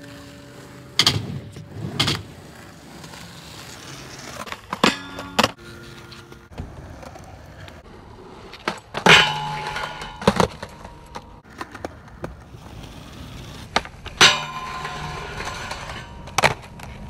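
Skateboard wheels rolling on concrete, broken by several sharp clacks of the board popping and landing. Trucks grind along a steel flat rail, which rings after some of the hits.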